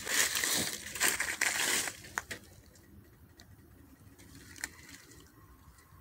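Rustling, crinkling handling noise for about two seconds, then quiet with a few faint clicks.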